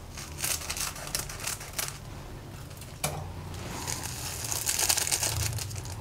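Foil instant-noodle seasoning sachets crinkling as they are cut open with scissors and squeezed out over a bowl of dry noodles. There is a sharp click about three seconds in, and a faint steady low hum underneath.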